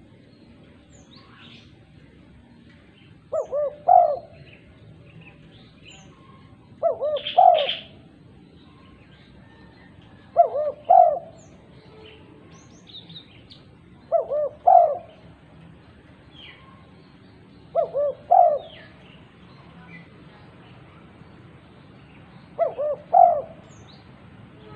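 Female spotted dove cooing: six short phrases of a few low coos each, repeating about every three and a half to four seconds. This is a calling call, meant to draw other doves.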